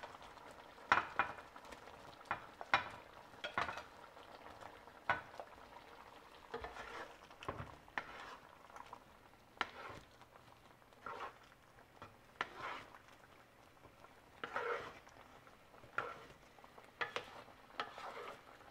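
Wooden spatula stirring and scraping diced taro through a thick rice-flour batter in a nonstick frying pan, in short, irregular strokes about once a second.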